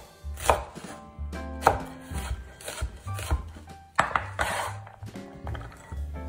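Chef's knife chopping an onion on a wooden cutting board: sharp knocks of the blade hitting the board roughly a second apart. About four seconds in comes a louder knock and a short rustling scrape as the diced onion is moved off the board into a glass bowl. Soft background music plays underneath.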